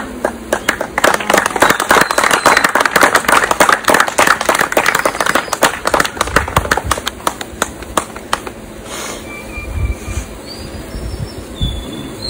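A small group clapping, many quick separate claps that thin out and stop about eight or nine seconds in.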